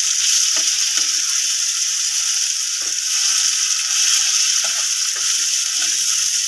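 Chopped tomatoes and onions sizzling in hot oil in a frying pan as a steady hiss, with a spatula stirring and scraping the pan now and then.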